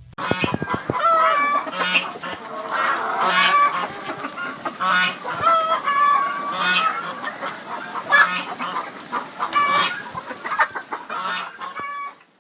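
A large flock of poultry calling all at once, many overlapping loud squawking calls with no pause.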